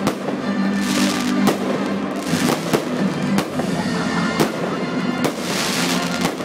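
Aerial firework shells bursting in a string of sharp bangs, about one every second or less, with swells of crackling sparks between them. Music with sustained low tones plays underneath.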